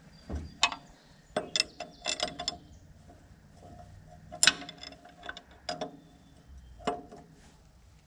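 An 18 mm wrench working the blade-tracking adjustment bolt on a Woodland Mills HM126 sawmill's band-wheel housing: irregular sharp metallic clicks and clinks with brief ringing, in two bunches, as the bolt is snugged up.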